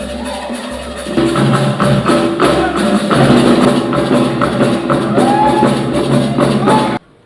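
Background music with a steady beat, getting louder about a second in and cutting off abruptly near the end.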